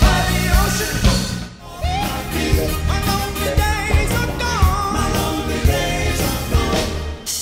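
Live rock cover band playing, with a lead singer over electric guitar, bass guitar and drums. The music briefly drops away about a second and a half in, then picks up again.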